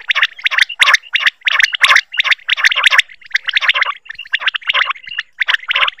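Common quail calling: rapid clusters of short, repeated notes, several a second, with brief breaks between groups.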